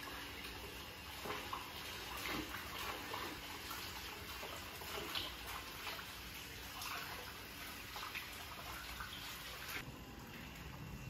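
Water lapping and splashing gently in a small outdoor plunge pool, with small irregular splashes over a steady trickle.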